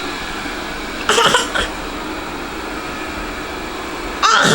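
Two short, noisy bursts of a baby's vocal sounds, about a second in and again near the end, over a steady fan-like whooshing noise.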